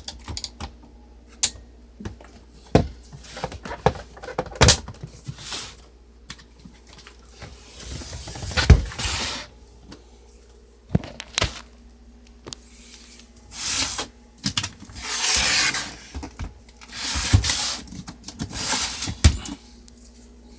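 Portable manual typewriter being handled: irregular sharp clicks and knocks, with several rubbing or sliding noises about a second long in the second half.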